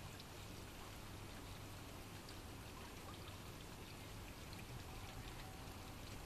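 Steady rain falling during a thunderstorm, a soft even hiss with single drops ticking now and then.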